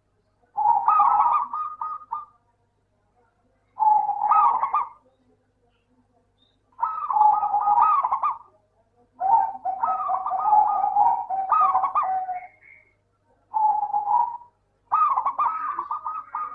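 Zebra dove (local perkutut) cooing: six phrases of quick, bubbling coo notes, each one to three seconds long, separated by short pauses.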